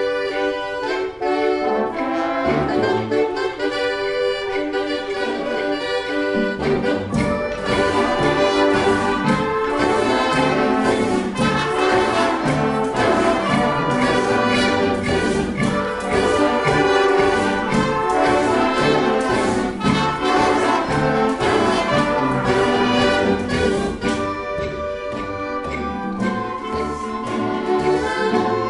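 Youth concert band of brass and woodwinds, saxophones among them, playing a piece together. Lighter at first, the full band with low brass and percussion comes in about seven seconds in and keeps a steady beat.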